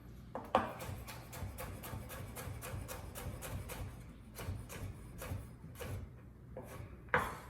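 Knife dicing carrot sticks on a cutting board: a quick, steady run of chopping strokes, with sharper knocks about half a second in and near the end.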